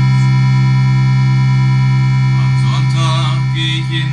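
Suzuki Omnichord holding one steady, sustained electronic chord from a pressed chord button. About two and a half seconds in, a man's voice comes in over it.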